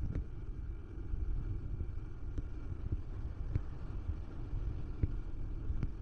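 Wind buffeting the microphone in a steady low rumble over the wash of small waves, with a few short light knocks scattered through, about one every second or so.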